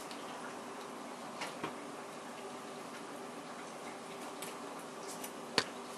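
A few light clicks and taps of metal utensils against an enameled cast iron Dutch oven while cornbread is cut and lifted out, the sharpest click near the end, over a steady low hum.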